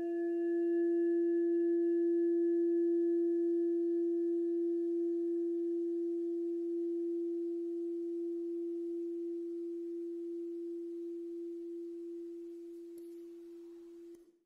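A single long, bell-like ringing tone, mid-pitched and steady, swelling slightly at first and then slowly fading, its higher overtones dying away first, before it cuts off just before the end.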